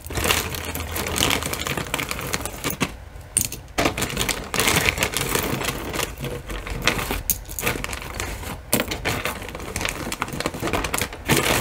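Costume jewelry clinking and rattling as pieces are handled and sorted: a dense, irregular run of small clicks of beads and metal against each other and the table.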